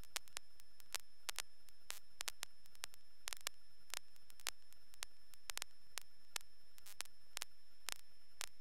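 Faint hiss of an aircraft radio/intercom audio feed between transmissions, broken by irregular sharp static clicks, a few a second, with a faint steady high-pitched tone underneath.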